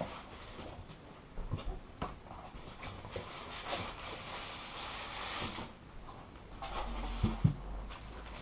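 Cardboard box and packing insert rustling and scraping as the box is unpacked by hand, with a longer stretch of sliding cardboard in the middle and a couple of dull thumps near the end.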